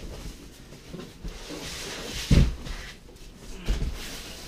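A foam-packed 3D printer being pulled up out of a cardboard box: the foam packing scrapes and rubs against the cardboard, with a heavy knock a little past halfway and a lighter one near the end.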